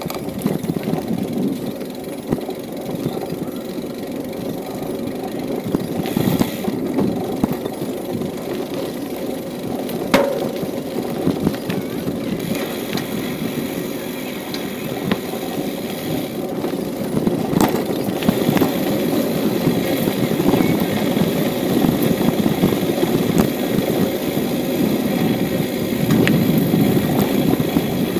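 A bicycle rolling along a park path: steady tyre noise with the crackly rattle of the bike. There are a couple of sharp clicks, about ten and eighteen seconds in.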